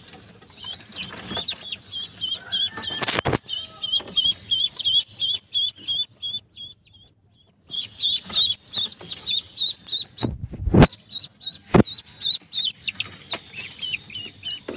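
Chicks and ducklings in a cage peeping rapidly and incessantly, with a few sharp knocks against the wooden cage. The peeping breaks off for about two seconds midway.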